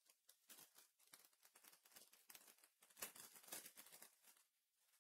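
Faint rustling and quick clicks of trading cards being handled, slid and set down, busiest and loudest about three seconds in.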